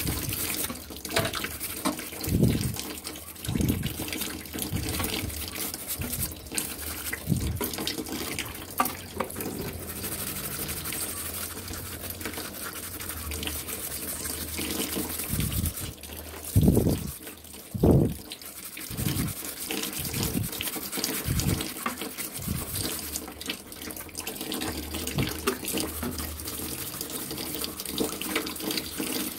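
Scrub brush scouring a metal fan part in soapy water, with water sloshing and dripping and short knocks throughout; the two loudest come close together a little past the middle.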